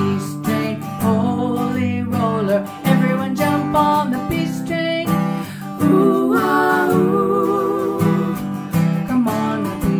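Acoustic guitar strummed in a steady rhythm while a woman sings long held notes over it.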